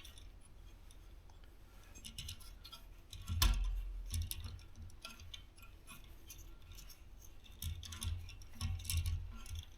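Scattered clicks and knocks of tools and metal fittings being handled, with one heavier thump about three and a half seconds in and a run of knocks near the end.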